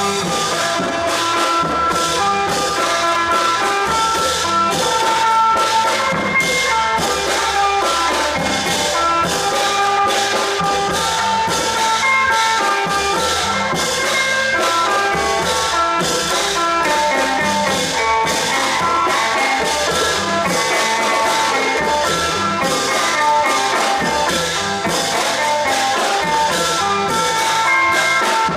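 Thai klong yao long-drum ensemble playing: a dense, steady drum and cymbal beat under held melodic notes.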